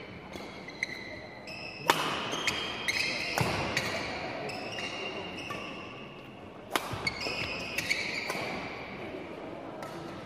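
Badminton rally: sharp racket-on-shuttlecock hits, the loudest about two seconds in, with court shoes squeaking on the gym floor between shots. There is a gap in the hits from about four to six and a half seconds.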